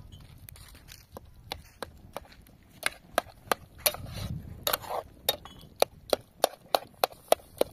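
A run of sharp knocks, sparse at first, then coming steadily at about three a second in the last few seconds.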